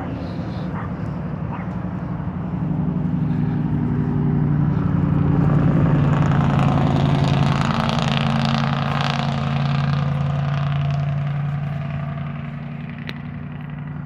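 A motor vehicle passing by: its engine hum builds over a few seconds, is loudest in the middle, then fades away.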